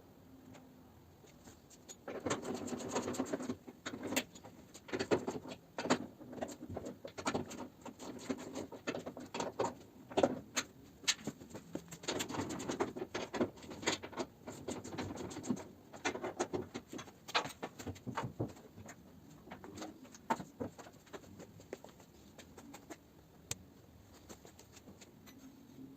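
Irregular scraping, rustling and clicking of hand work with tools or parts, in uneven bursts that start about two seconds in and die down near the end.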